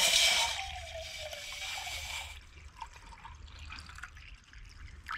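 Water poured from a stainless steel bottle into a metal pot on a small wood stove: a loud splashing pour for about two seconds, then a quieter trickle as the stream thins.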